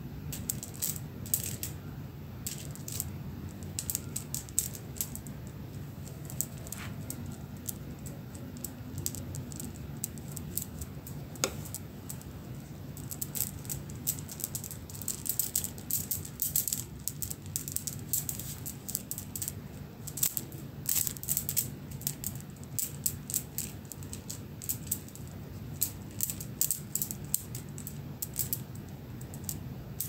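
A strand of wooden beads clicking and rattling together in irregular clusters as bare toes shake and swing it, over a steady low hum.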